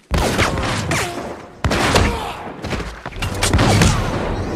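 Flintlock musket fire in a film battle scene: several sudden loud shots, about a second and a half apart, over a continuing din.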